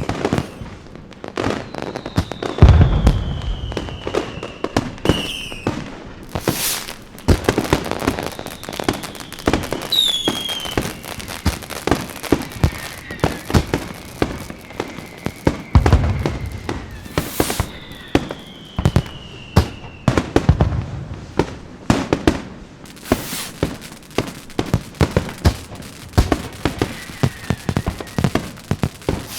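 Fireworks going off: dense crackling and popping throughout, with deep booms of bursting shells, the biggest about three seconds in, and a few high whistles falling in pitch.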